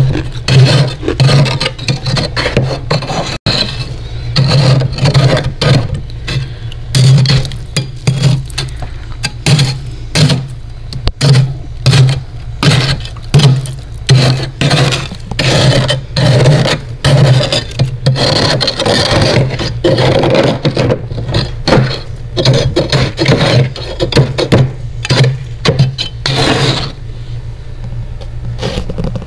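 Metal spoon scraping and scooping into thick, powdery freezer frost in quick repeated strokes, with the crunch of the frost breaking, over a steady low hum. The scraping stops near the end.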